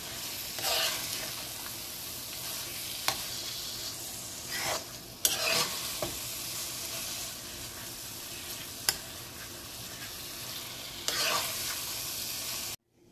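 Carrot mash frying in a nonstick pan, with a steady sizzle while a spatula stirs and scrapes through it, now and then clicking sharply against the pan. The sound cuts off suddenly near the end.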